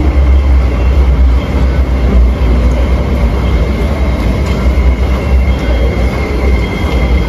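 MTR subway train running alongside the platform behind the glass screen doors: a loud, steady rumble with a thin, steady high whine over it.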